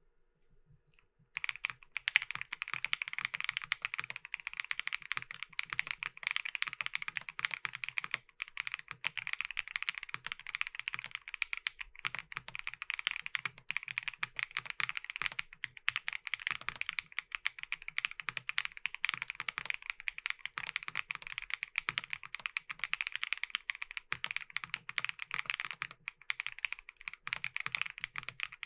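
Custom 65% mechanical keyboard (Nuxros Kraze, polypropylene plate, Keygeek Y2 switches) being typed on quickly and continuously. The rapid keystrokes start about a second and a half in, with a couple of brief pauses.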